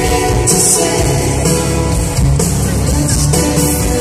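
Live pop-rock band music played loud through a concert PA, with guitar, drums and a male lead vocal.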